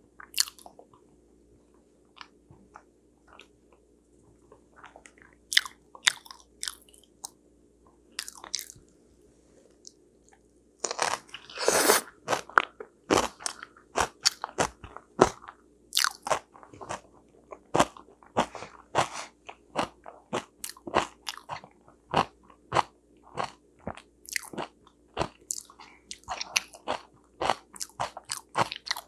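Close-miked eating of sweet potato: biting and chewing with wet mouth clicks and smacks. The sounds are sparse at first. About a third of the way in, a louder crunchy stretch comes, and after it the clicks come steadily, one to two a second.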